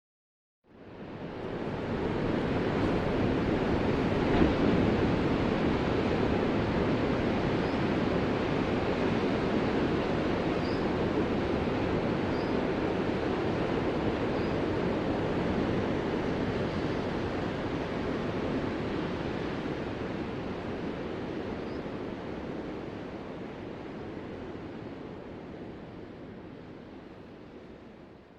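Continuous wash of ocean surf, an even hiss and rumble without distinct breaking waves. It fades in under a second in and slowly fades out toward the end.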